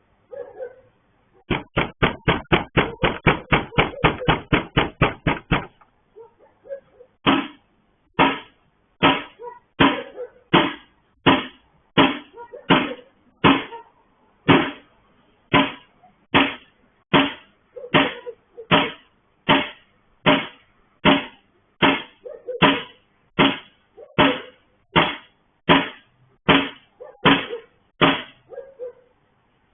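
Loud banging on a gate: a fast run of about four blows a second for about four seconds, then, after a short pause, steady blows about one and a half times a second that keep on to near the end.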